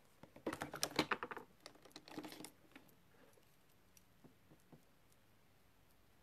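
A quick run of small clicks and taps lasting about two seconds, then a few faint single ticks: makeup items being handled.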